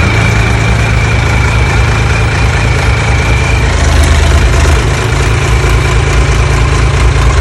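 Mini excavator engine running steadily at idle, with a thin high whine that fades out about halfway through.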